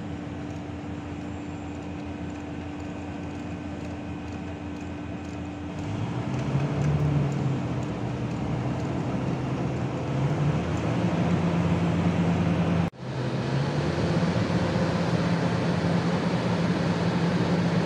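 Hitachi EX1200 excavator's diesel engine running, the hum turning louder and higher about six seconds in as it takes load, with the pitch shifting afterwards. The sound drops out for an instant about two-thirds of the way through.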